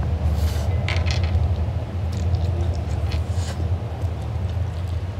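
Mouth sounds of eating spaghetti: a few short wet smacks and slurps over a steady low hum.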